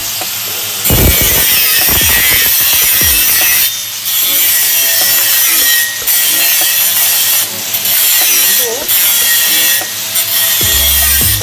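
Angle grinder disc grinding into a pipe's weld bead to cut out a back-bead root concavity defect before re-welding. It grinds in repeated passes, dropping off briefly several times as the disc is lifted from the pipe, with a heavier low hum near the end.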